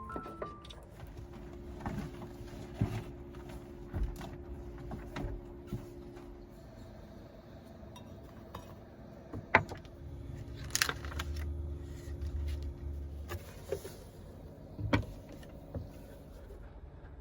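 Scattered light clinks and knocks of small hard objects being handled, such as dishes, utensils or keys, over a faint steady hum, with a low rumble swelling briefly past the middle.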